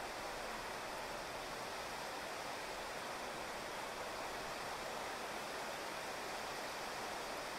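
Steady rain falling on a wet asphalt street and grass, an even hiss with no single drops or other events standing out.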